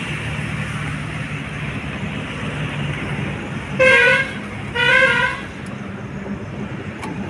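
HMT tractor's diesel engine running steadily while bogged in paddy mud, with two loud horn honks, a short one about four seconds in and a slightly longer one about a second later.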